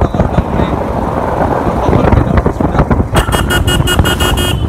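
Motorcycle riding noise, with wind buffeting the phone's microphone over the engine and road rumble. About three seconds in, a high-pitched vehicle horn beeps rapidly, about six beeps a second, for about a second and a half.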